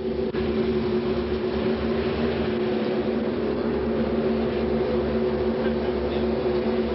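Vehicle engines idling steadily: a constant hum with a low rumble underneath, without any revving.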